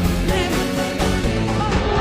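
Upbeat axé music from a full band with drums and bass on a steady beat, and a voice heard briefly.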